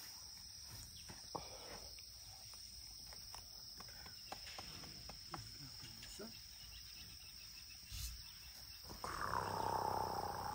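Crickets chirring steadily, with scattered light footsteps and clicks in sand; about nine seconds in, a young African elephant gives a short loud call lasting about a second and a half, the loudest sound here.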